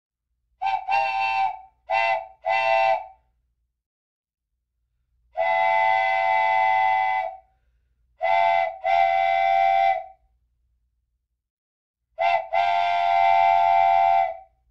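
Steam-type boat whistle tooting at one steady pitch: a quick run of short toots, then three long blasts a few seconds apart, the last two each led by a short toot.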